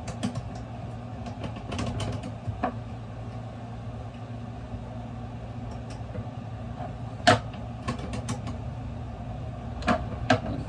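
Scattered clicks and knocks as parts of a table saw are handled, the loudest about seven seconds in and a close pair near the end, over a steady low hum.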